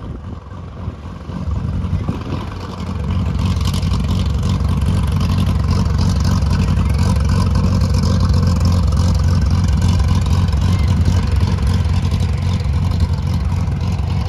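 Cessna 182A Skylane's six-cylinder Continental O-470 piston engine and propeller at taxi power, a steady low drone that grows louder over the first few seconds as the plane taxis up close.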